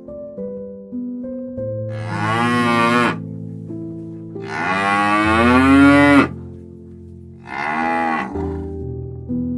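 Cow mooing three times, the middle call the longest and loudest, over soft background music of plucked, piano-like notes.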